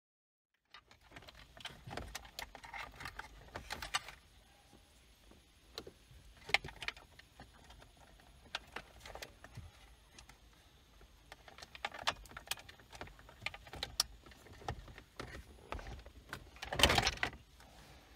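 Irregular clicks, rattles and rustling from hands working among the plastic trim and wiring of a car's opened centre console, with a louder clatter near the end.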